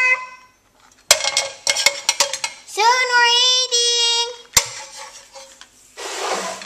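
A young girl's voice drawing out sing-song words twice, with light clicks and knocks of kitchen utensils against a frying pan in between. A short hiss comes near the end.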